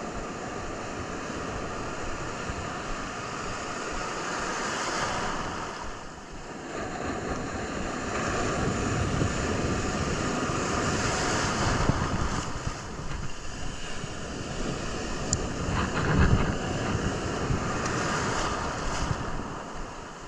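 Surf washing onto the beach, swelling and ebbing every few seconds, with wind buffeting the microphone in gusts, one strong gust about three-quarters through.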